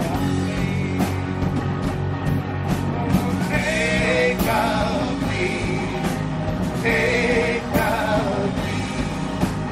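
Live rock band playing: electric guitars and drums, with a man singing into the microphone in short phrases over the music.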